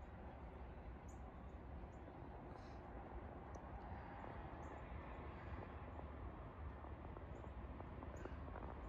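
Quiet outdoor ambience: a steady low rumble and hiss, with faint short bird chirps scattered throughout.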